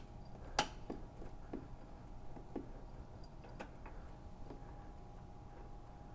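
Small plastic clicks and clinks as the glove box lid and latch in a Vespa 50 scooter's leg shield are worked by hand. The sharpest click comes about half a second in, with fainter ones spread over the next few seconds. A faint steady hum runs underneath.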